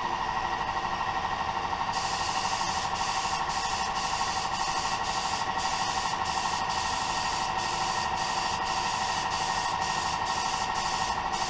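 Compressed-air mini spray gun hissing as it sprays paint, starting about two seconds in and stopping for brief moments many times as the trigger is let go, over a steady hum.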